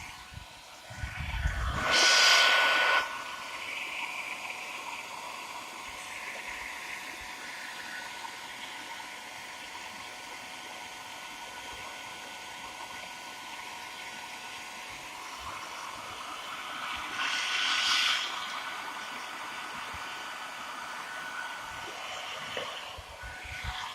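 Handheld hairdryer blowing steadily, with a faint constant whine, heating a motorcycle headlamp to soften the sealant that holds the lens. It grows louder twice, briefly about two seconds in and again around eighteen seconds.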